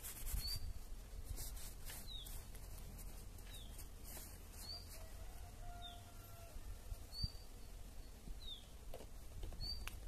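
A small bird chirping, one short high chirp roughly every second, over a steady low rumble.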